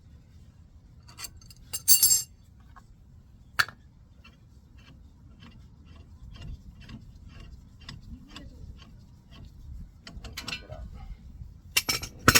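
Metal clinks and clatter of hand tools and brake parts as the C-clamp is released from the caliper piston. There are a few sharp knocks, the loudest about two seconds in, at about three and a half seconds and near the end, with a run of light, fairly even ticks in between.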